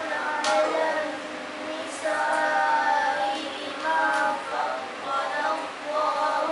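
Girls' voices reciting the Quran aloud in a drawn-out, melodic chant (tilawah), in phrases separated by short breaths.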